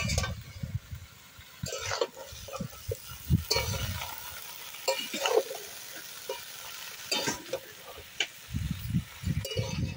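Metal spatula stirring and tossing leafy greens and vegetables in a metal karahi, with irregular scraping strokes against the pan over a faint sizzle of frying.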